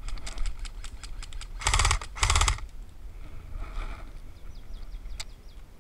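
Dry fallen leaves crunching and rustling underfoot, with two short, loud rattling bursts about two seconds in and a single sharp click near the end.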